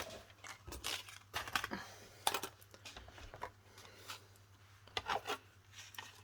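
Irregular clicks, scrapes and rustles of the plastic cutting plates, metal die and cardstock of a die-cutting machine being handled and stacked, with no steady cranking rhythm.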